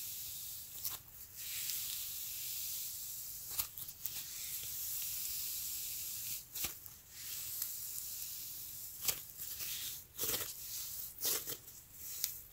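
Sticky sand slime being worked by hand, making a steady, sizzly hiss with irregular small crackles and pops.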